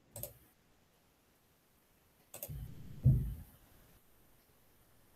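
Sharp clicks over a computer microphone, such as a mouse or keyboard: one just after the start and one about two and a half seconds in. The second is followed by a deeper, muffled sound lasting about a second.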